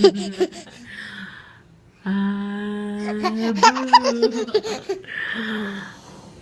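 A person laughing: long drawn-out voiced laughs broken by quick pulses, with loud breathy gasping intakes of breath between them.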